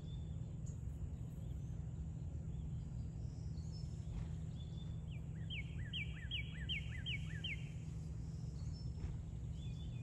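A small bird sings a run of about seven clear, falling whistled notes, roughly three a second, a little past the middle, over a steady low outdoor rumble.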